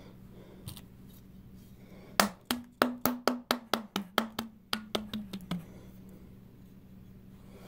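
Palm slapping the bottom of an upturned bottle of Heinz 57 sauce to shake the thick sauce out: a quick run of about fifteen hollow knocks, about four a second, starting about two seconds in.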